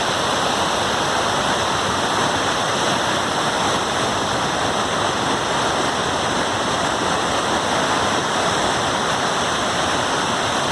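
Waterfall: water pouring and rushing in a steady, even, loud wash of noise.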